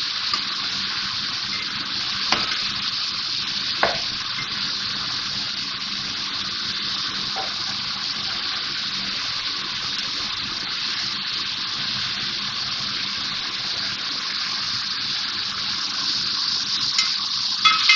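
Marinated chicken pieces sizzling steadily in oil and their own juices over high heat in a metal pot, with three light clicks of metal tongs against the pot in the first half as the pieces are turned.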